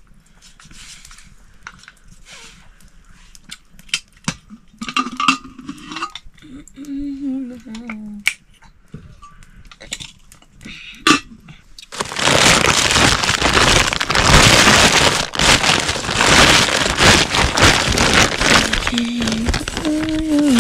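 Cooking noises: scattered light clicks and knocks of pots and utensils, then a loud continuous noise that starts suddenly about twelve seconds in and runs on.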